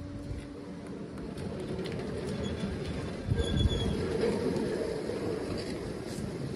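A heavy steel-and-glass sliding workshop door rolling along its track on its wheels. It gives a steady low rumble that builds, is loudest about three and a half seconds in with a thin, brief squeal, then eases off.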